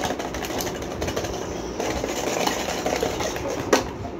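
Small plastic cups clattering and tapping against a tiled floor and each other as they are handled, with one sharper click near the end.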